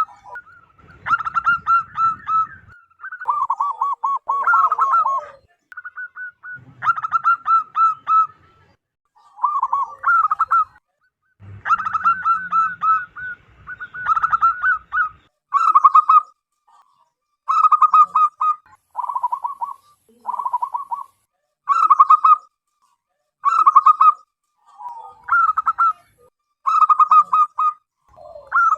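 Zebra dove (perkutut) cooing: repeated staccato phrases of quick, bubbling notes, a new phrase about every two seconds and at times overlapping, loud throughout.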